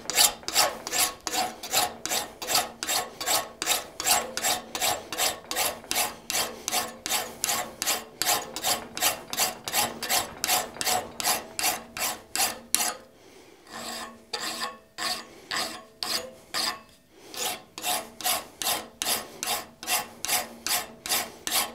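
Hand file rasping back and forth across a forged steel knife blade clamped in a vise, in even strokes about three a second, with a brief pause a little past halfway. The back of the blade is being filed flat and its hammer marks taken out before hardening.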